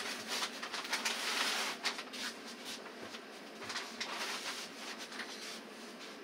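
Rustling, scuffling and a few sharp clicks as a reluctant cat is handled out of a plastic pet carrier and its bedding. The noise is strongest in the first two seconds, then settles to quieter shuffling.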